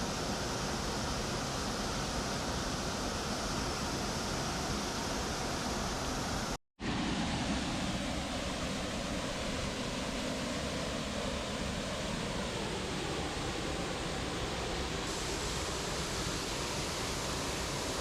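Steady rushing of white water from a waterfall and rapids, an even hiss-like noise; it drops out completely for a split second about six and a half seconds in, then carries on.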